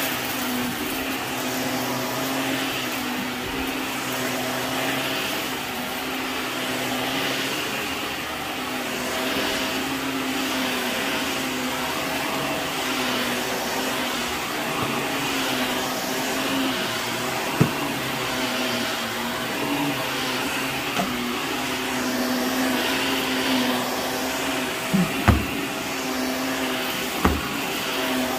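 Bagless upright vacuum cleaner running on carpet, a steady motor hum that swells and fades with the push-and-pull strokes. Debris being picked up gives a few sharp clicks in the second half, two close together near the end.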